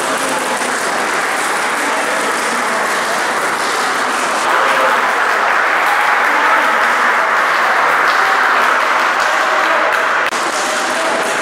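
Crowd applauding, the clapping growing louder about four and a half seconds in and easing slightly near the end.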